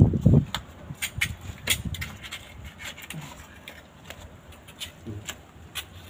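Knife scraping against the large, hard scales of a parrotfish as they are pried off: a string of short, irregular scrapes and clicks, several a second.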